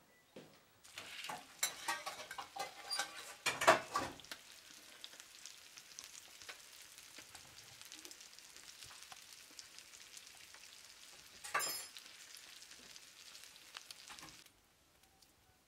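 Small bluefish and horse mackerel frying in hot oil in a pan: a steady sizzle with spitting crackles. The sizzle starts just under a second in, is busiest over the first few seconds, spits sharply once near the twelfth second, and cuts off about a second before the end.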